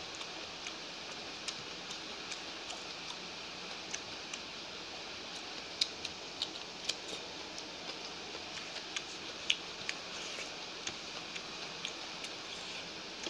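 Eating by hand: fingers working rice on a plate and mouth chewing, heard as irregular small clicks and crackles over a steady hiss, with a few louder crunches about six seconds in as a slice of raw onion is bitten.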